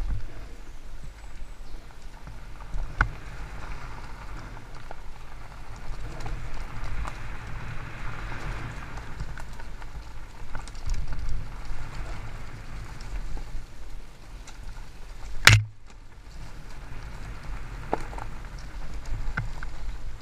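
Haibike Sduro FullFat Six fat-tyre electric mountain bike riding fast down a dirt singletrack: the tyres crunch over the trail over a steady low rumble, with scattered knocks from bumps. One sharp, loud clack comes about fifteen seconds in.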